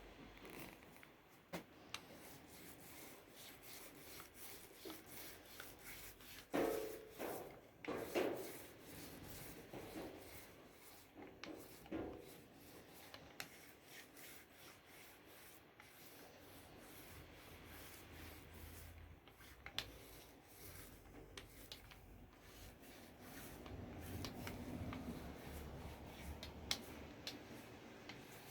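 Hand rubbing and scraping on a wooden speaker cabinet, faint and ongoing, with scattered light clicks and knocks and a few louder strokes about seven to twelve seconds in.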